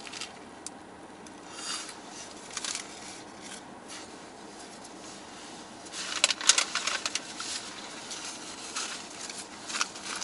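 Chewing food, with a paper food wrapper rustling and crinkling as it is handled. The crinkling is loudest about six to seven seconds in.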